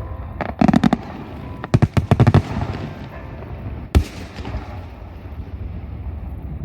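Aerial fireworks bursting: two quick clusters of sharp crackling bangs in the first two and a half seconds, then a single loud bang about four seconds in, with a low rumbling echo between and after.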